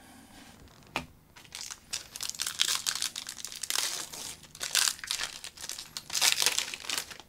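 Trading card pack wrapper being torn open and crinkled by hand: a click, then irregular crackling and rustling bursts, loudest in two spells in the second half.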